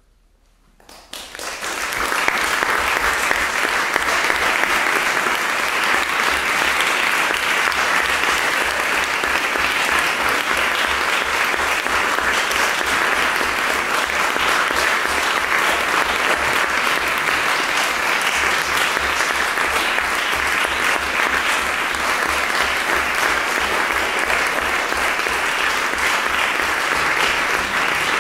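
Audience applauding. It breaks out about a second in after near silence, builds quickly and stays steady.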